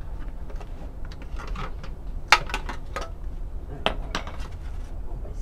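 Hammer tapping a sheet of tin-can steel flat on a wooden anvil: irregular metallic taps and clinks, the loudest about two seconds in.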